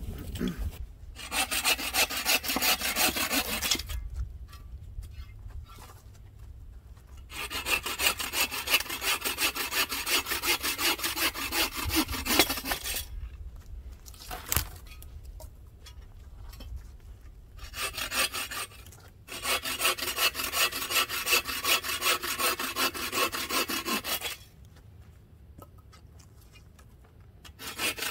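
Hand saw cutting through a dead branch for firewood, quick back-and-forth rasping strokes in several bouts with short pauses between.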